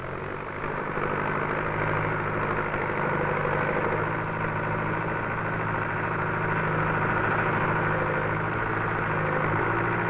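JCB 3S loader's diesel engine running steadily while the front shovel is worked.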